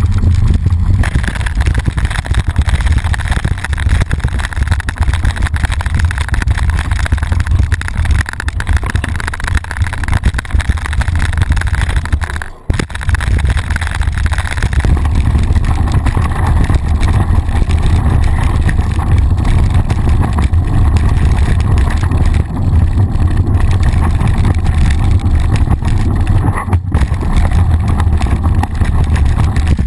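Ride noise from a mountain bike rolling fast down a dirt track, heard through a loosely mounted handlebar action camera: a steady heavy rumble of wind buffeting and the camera shaking, with the tyre on dirt. It briefly drops out twice, about a third of the way in and near the end.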